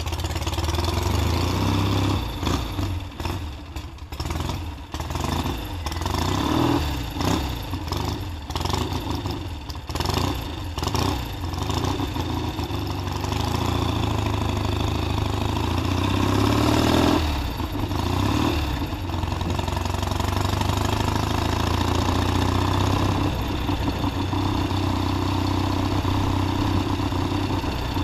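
1969 Triumph T120's 650cc parallel-twin engine pulling away and being ridden. For the first ten seconds the throttle opens and closes unevenly. The engine then climbs steadily in pitch and drops off sharply about seventeen seconds in, after which it runs at a steady note.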